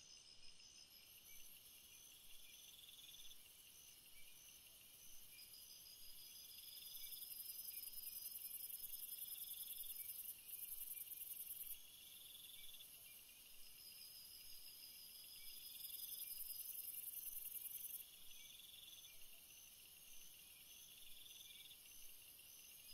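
Faint chorus of crickets and other insects: a high, steady buzz that swells and fades, a rapid pulsed trill, and a lower chirping call that repeats every couple of seconds.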